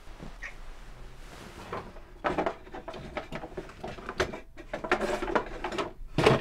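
A wooden drawer pulled open and a hand rummaging through small plastic toys and clutter inside it: a quick run of clicks, knocks and rustles starting about two seconds in, a short pause, then more clattering.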